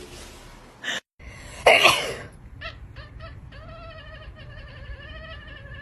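Domestic cat meowing: a loud noisy burst, then a few short meows, then one long, wavering, drawn-out yowl lasting about three seconds.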